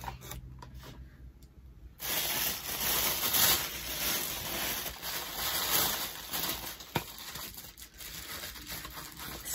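Gift packaging crinkling and rustling as it is handled, starting about two seconds in and running for several seconds, with a sharp click about seven seconds in followed by softer rustling.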